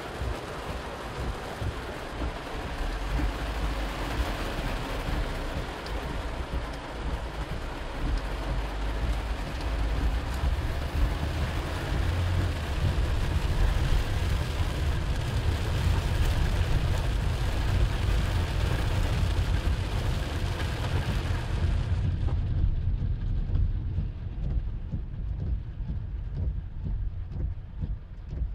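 Heavy rain drumming on a car's roof and windscreen, heard from inside the cabin, over a steady low rumble from the moving car. About three-quarters of the way through, the high hiss of the rain drops away and the low rumble is left.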